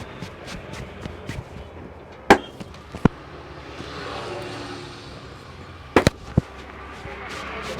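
Sharp slaps of a barber's hands on a customer's head and neck during a head massage: single slaps a couple of seconds in and again about a second later, then a quick cluster of three about six seconds in, over a low street background that swells in the middle.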